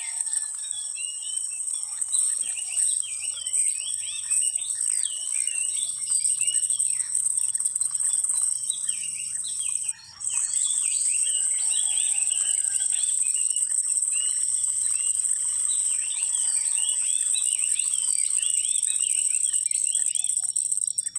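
A steady, high-pitched insect drone with many birds chirping over it. The drone breaks off briefly about ten seconds in.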